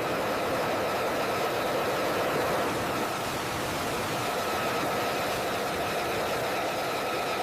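Steady jet engine noise with a faint, even whine.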